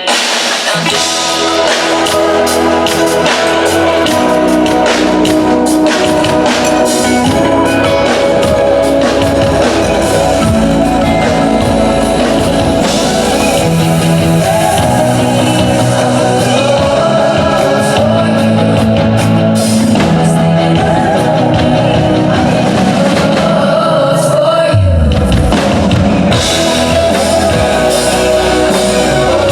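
Live pop-rock band playing through the stage PA at a sound check, with drum kit, guitar and sustained chords.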